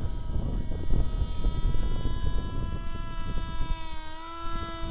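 Turnigy 2836 1100kv brushless motor and pusher propeller of a foam flying wing buzzing in flight, a steady whine of several pitches that dips slightly about four seconds in. Gusty wind buffets the microphone throughout.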